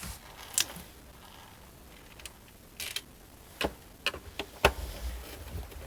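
Scattered small clicks and taps of a screwdriver and screws against a plastic boombox casing as screws are tried in their holes, the loudest knock a little over four and a half seconds in.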